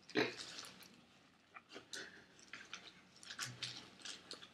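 Faint chewing of a mouthful of chicken mayo burger: scattered short, soft wet smacks and clicks.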